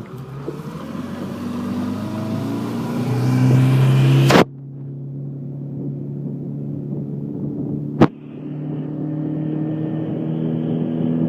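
Motorboat engine speeding up, its note rising over the first four seconds, then running steadily at speed. There is a sharp click with a sudden drop in level about four seconds in, and another brief click near eight seconds.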